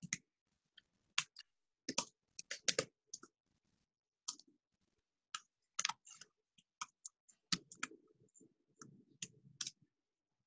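Scattered, irregular clicks of a computer mouse and keyboard, with a run of duller taps in the last few seconds.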